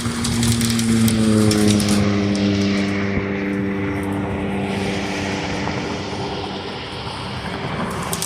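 Propeller aircraft flying over, its engine drone slowly falling in pitch as it passes.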